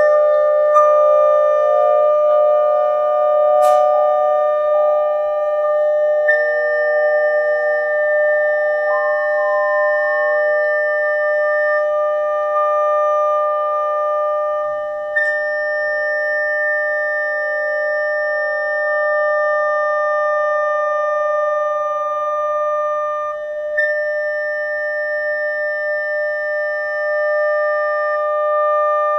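Several mobile phones' sine-wave generators sounding steady pure tones together as a chord, with tones joining and dropping out and one gliding upward briefly about nine seconds in. A single sharp click about four seconds in.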